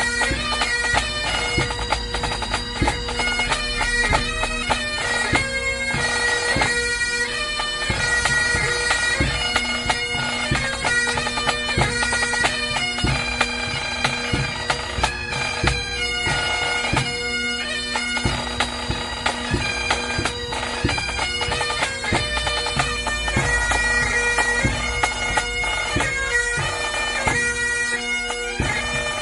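Bagpipes playing a tune: a melody of changing notes over steady, unbroken drones.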